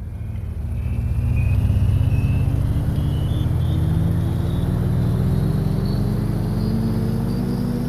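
A vehicle engine running with its pitch rising slowly and steadily throughout, over a heavy low rumble.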